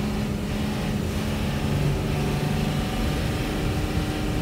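Inside a moving coach bus: a steady engine drone under the hiss of tyres and rain on the wet road.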